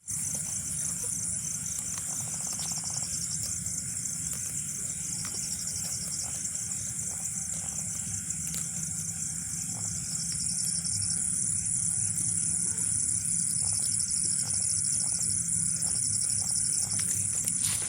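Insects chirring in a steady, high, rapidly pulsing drone over a low hum, a little louder from about ten seconds in.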